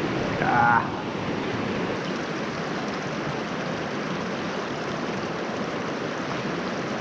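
Creek water running steadily over rocks, a constant rushing hiss. A man's short exclamation "Ah" sounds just under a second in.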